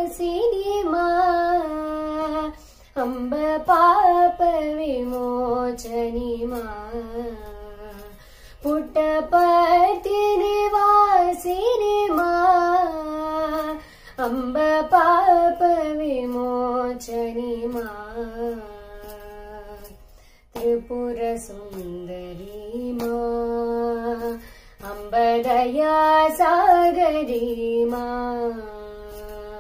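A female voice singing a Devi bhajan in raga Shivaranjani, in phrases that glide and waver up and down in pitch, each a few seconds long with brief breaths between them.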